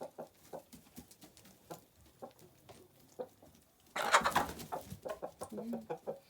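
Chickens clucking softly in a coop, then a sudden loud squawk and commotion about four seconds in, followed by quick repeated clucks; the outburst fits a hen being chased by a rooster.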